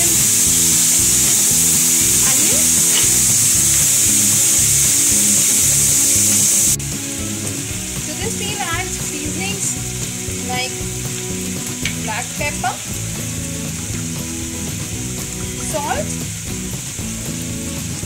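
Diced baby corn, bell peppers and onion sizzling in hot oil in a nonstick pan while being stirred with a wooden spatula. The sizzle is loud at first and drops suddenly to a quieter level about seven seconds in.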